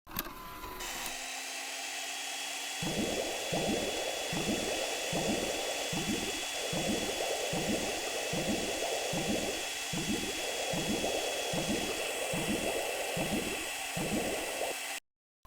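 Cartoon washing sound effect: a steady spraying hiss of water. About three seconds in, a regular swishing pulse joins it, roughly three strokes every two seconds, and both cut off suddenly near the end.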